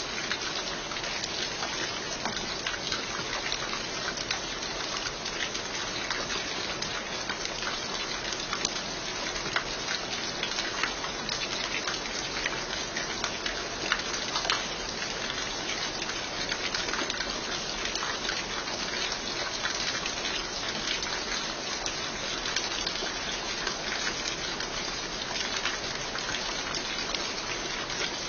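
Steady rain falling, with many individual drops striking close by as sharp little ticks over an even hiss.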